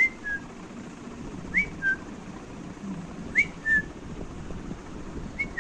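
Clear two-note whistle, a short rising note followed by a slightly lower note, repeated four times about every 1.7 seconds.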